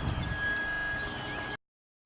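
Electric ducted-fan RC jet whining steadily in flight, a thin high tone over a wash of noise. The sound cuts out abruptly near the end: a dropout in the recording.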